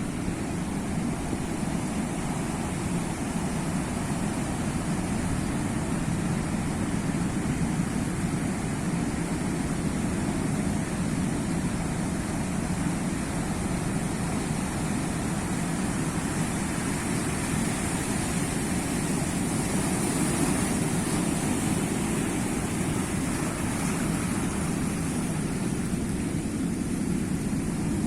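Sea waves making a steady low rush of surf, swelling slightly and getting hissier about two-thirds of the way through.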